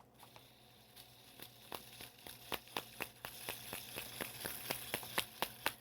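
A run of small sharp clicks from a plastic fidget toy being worked in the hands, irregular at first and then coming faster, two to four a second, over faint rustling.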